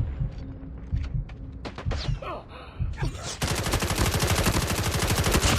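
Video game gunfire: a few scattered shots, then from about three and a half seconds in a long unbroken burst of rapid automatic fire.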